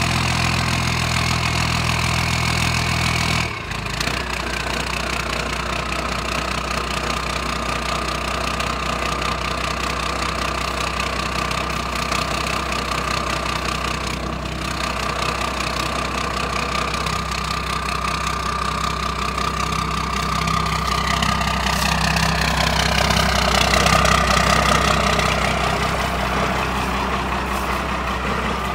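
12-valve Cummins 5.9 L inline-six turbo diesel idling steadily while warming up after a cold start. About three and a half seconds in, the idle settles to a lower note and a high whine drops in pitch. Later a whine wavers and the engine grows a little louder.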